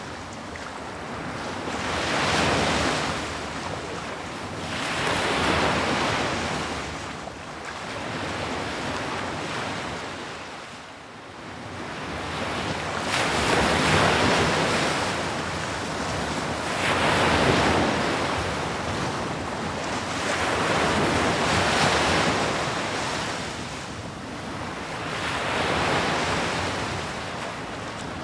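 Sea waves breaking and washing up a shore, each surge swelling and fading about every three to four seconds, with a brief lull around the middle.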